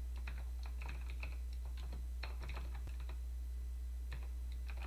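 Computer keyboard typing in short runs of keystrokes, over a steady low electrical hum.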